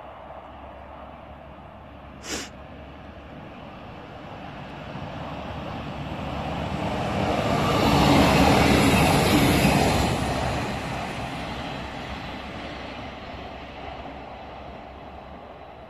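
Bayerische Regiobahn Alstom Coradia LINT diesel railcar passing close by. Its engine and wheels on the rails swell to a peak about eight to ten seconds in, then fade away. A brief high-pitched squeak comes about two seconds in.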